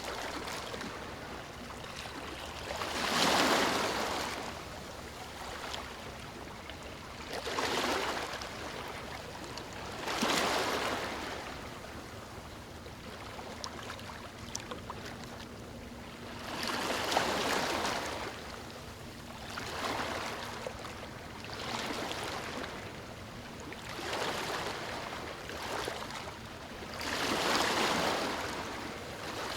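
Ocean waves washing onto a beach: a steady surf hiss swelling about eight times, each wash rising and falling over a second or two, a few seconds apart.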